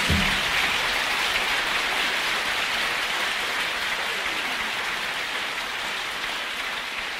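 Concert audience applauding, a dense even clapping that slowly fades. The band's last low note stops just as it begins.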